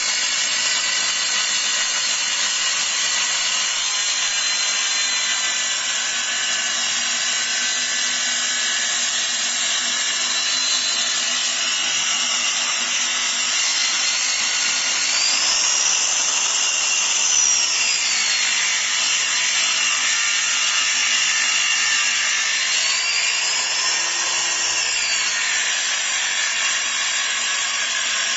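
Electric circular saw running and cutting wood: a steady high whine whose pitch rises and falls twice, around the middle and again near the end.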